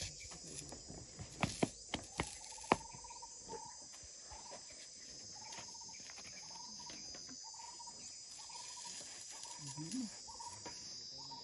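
A steady chorus of insects, with a bird repeating one short note about every 0.7 seconds. Early on, five sharp snaps come in quick succession, the elephant tearing up grass with its trunk.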